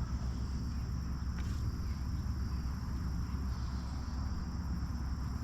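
Outdoor ambience: wind rumbling on the microphone under a steady high insect chirring, with one faint tick about a second and a half in.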